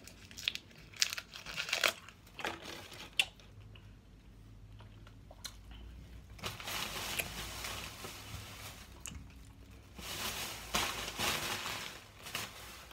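A candy wrapper being handled and unwrapped, crinkling in short sharp crackles over the first few seconds and in longer stretches later on.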